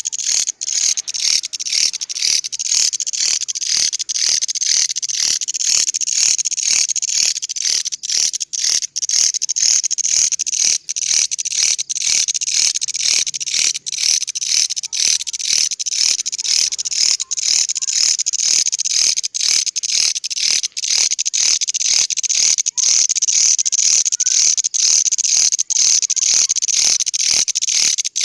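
A grasshopper singing: a loud, continuous high-pitched buzzing song that pulses steadily at about three beats a second.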